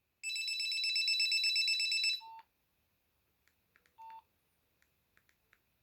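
Samsung SGH-A300 mobile phone playing its number 1 ringtone, a high electronic trill that pulses rapidly and stops about two seconds in. Then come two short keypad beeps about two seconds apart and a few faint button clicks.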